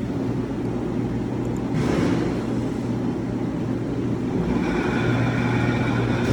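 A truck engine running steadily with a constant low hum. About four and a half seconds in, a steady high-pitched whine joins it.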